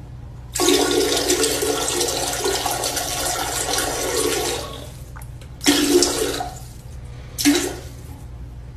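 Toilet flushing: a rush of water for about four seconds, starting half a second in and fading out. Two short, loud honk-like blasts follow near the end.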